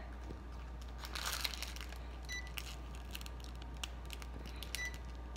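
Packaging crinkling and rustling with scattered handling clicks, and a short high electronic beep about two seconds in and again near the end.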